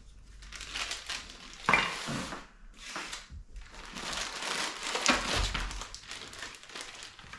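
Clear plastic parts bags crinkling as they are handled and opened, in irregular bursts, the loudest about two seconds in and again about five seconds in.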